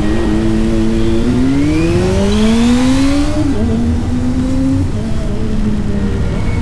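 Motorcycle engine under way, its pitch climbing for about two seconds as the bike accelerates, then dropping suddenly at a gear change about three and a half seconds in and running steadily again.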